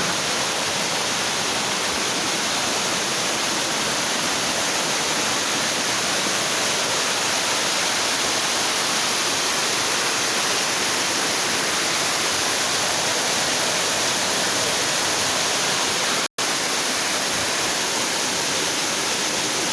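Waterfall, its water falling and splashing in a steady, even rush, with a momentary break about sixteen seconds in.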